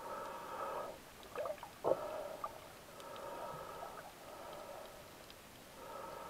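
Muffled underwater sound picked up through a camera's waterproof housing, swelling and fading, with two sharp knocks about one and a half and two seconds in.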